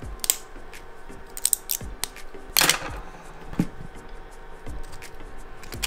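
Thin 3D-printed plastic ornament pieces clicking and rustling as they are handled and slotted together, with a louder scraping rustle about two and a half seconds in.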